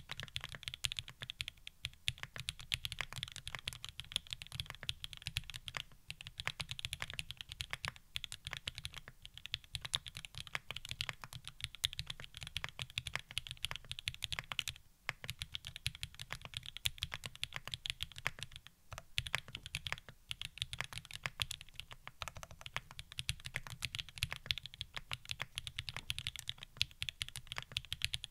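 Continuous typing on a gasket-mounted Sangeo60 60% mechanical keyboard with lubed SP-Star Polaris Grey switches, an aluminium plate with plate foam and GMK Laser keycaps: a dense, even stream of key strokes, with short pauses about 15 and 19 seconds in.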